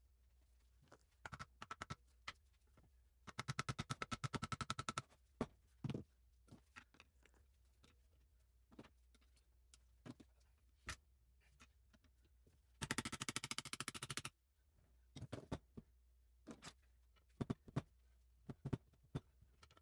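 Cordless impact wrench hammering in two bursts of about a second and a half each, undoing fasteners on a classic Mini A-series cylinder head. Between the bursts come scattered clicks and taps of hand tools on metal.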